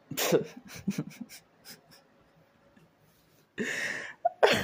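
Handling noise from a phone held close to the face: a run of short clicks and rustles, and a short breathy rush about three and a half seconds in.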